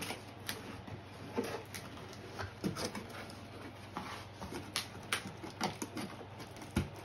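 Cardboard toy packaging being handled: flaps and inserts rustling and scraping, with scattered light clicks and a few soft knocks.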